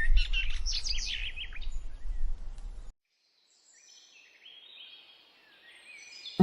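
Birds chirping and singing in quick rising and falling notes over a low rumble, cutting off suddenly about three seconds in, then fainter chirps.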